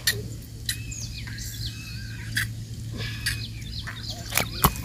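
Small birds chirping, with short rising and falling calls, over a steady low hum. Sharp clicks and taps from a hook being worked out of a caught mrigal carp's mouth, the loudest about four and a half seconds in.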